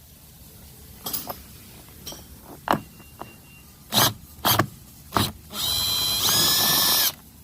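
Several sharp clicks and knocks, then a power drill-driver runs for about a second and a half near the end, its pitch stepping up partway through, backing out one of the 7 mm screws that hold the door panel.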